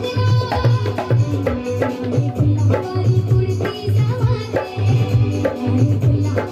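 Dholak played in a steady, driving rhythm: deep bass strokes on the large head alternating with sharp, higher slaps on the small head.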